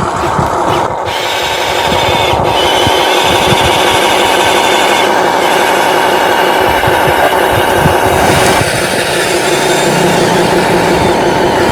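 Electric motors of a radio-controlled construction model running with a steady mechanical whine, the tone shifting about a second in and again twice later as it works.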